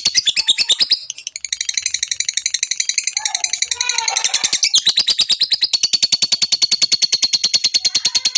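Lovebird's long rapid chatter (ngekek): a fast, evenly spaced train of high ticking notes. About a second in, it breaks into a busier, lower chatter for a few seconds, then the rapid ticking resumes.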